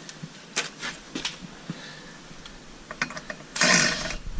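Light metallic clicks and taps from hand work on a steel clutch puller being threaded into the clutch on the crankshaft. About three and a half seconds in comes a short, loud burst of noise, followed by a low rumble.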